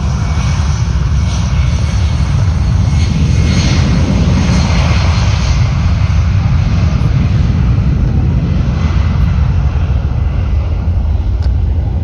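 UPS cargo jet's engines at takeoff power as it departs: a loud, steady jet rumble that swells about four to five seconds in and then slowly eases.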